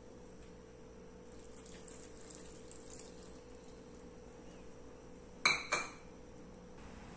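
Water poured faintly from a small bowl into a stainless-steel pressure cooker, then two quick ringing clinks about five and a half seconds in as the bowl knocks against the cooker.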